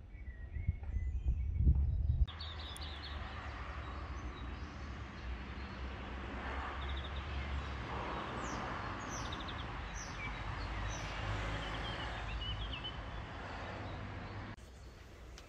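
Birds chirping, with quick high notes that sweep downward, over a steady outdoor hiss. In the first two seconds a louder, gusty low rumble of wind on the microphone covers it, then cuts off abruptly.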